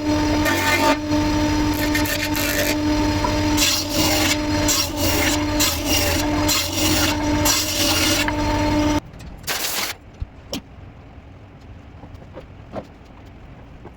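An electric power tool runs at a steady pitch while working wood, with a grinding, rasping noise over the motor. It stops abruptly about nine seconds in, followed by a brief rustle and a few light knocks.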